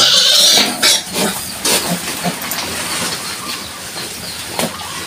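Nursing Large White sow and her five-day-old piglets: a loud shrill squealing burst in the first second, then quieter pig noises over a steady hiss with a few soft clicks.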